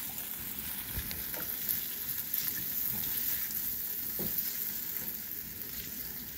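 Chicken pieces sizzling in soy sauce and vinegar in a nonstick pan as a silicone spatula stirs them. There is a steady hiss and a few light knocks of the spatula against the pan.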